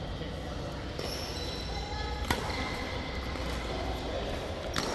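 Badminton racket strikes on a shuttlecock during a rally: three sharp hits, the loudest a little before halfway. Under them runs steady background noise from the hall.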